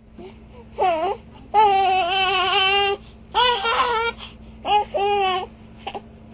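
An infant crying in a series of wails: a short cry about a second in, then a long wail and two shorter ones, each wavering in pitch. A faint steady hum runs underneath.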